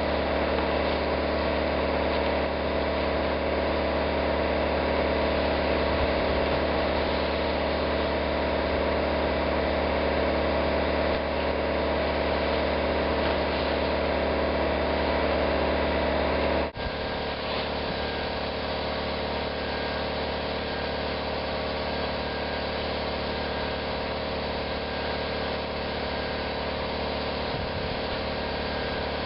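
Steady drone of the engine-driven air compressor that feeds the sandblaster, with an even hiss over it. About two-thirds of the way through it drops suddenly to a slightly quieter level and carries on steadily.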